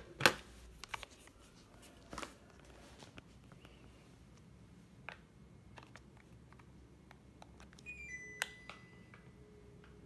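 A sharp knock and some handling noise as a plastic air-conditioner remote is picked up off a desk, with a few light button clicks. About eight seconds in, the LG Dual Inverter mini-split indoor unit gives a short high beep and then a longer one, acknowledging the remote's command.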